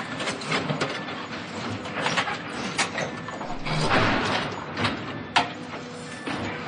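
Demolition machinery breaking up a building: a steady run of machine noise with frequent clanks and knocks of debris, a louder swell of crashing about four seconds in and a sharp crack a little after five seconds.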